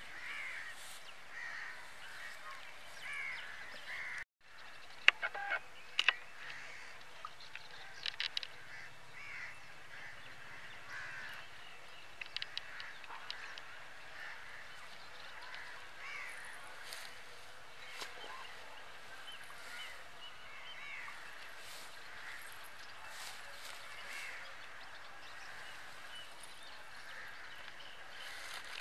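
Birds calling over and over in short curling calls, with a few sharp clicks and knocks between about five and thirteen seconds in, loudest around five to six seconds in. The sound cuts out for a moment about four seconds in.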